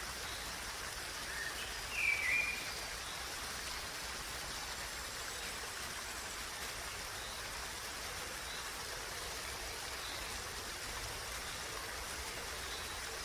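Steady rush of a flowing stream, with one short bird call about two seconds in and a few faint chirps later.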